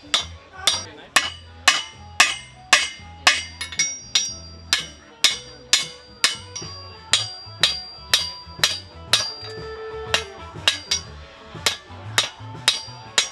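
Blacksmith's hand hammer striking a hot steel knife blank on an anvil in a steady rhythm of about two blows a second, each with a short metallic ring. Background music plays underneath.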